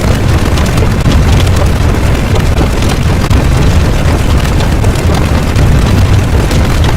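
Loud, deep, continuous rumbling sound effect of the explosion kind, a steady roar with no single distinct blast.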